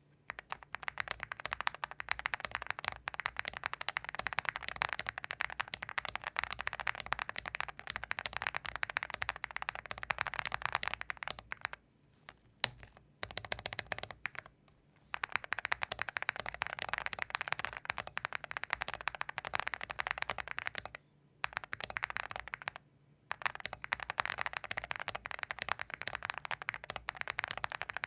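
Continuous fast typing on a Zoom75 mechanical keyboard built with stock WS Morandi switches, a PC plate, PE foam, plate foam, case foam and PBT keycaps, broken by a few brief pauses.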